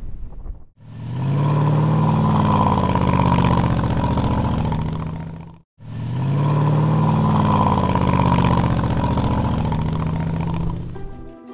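A motor-vehicle engine revving, its pitch rising and then falling, played twice as two identical five-second copies, each starting suddenly after a brief gap: an edited engine-rev sound effect.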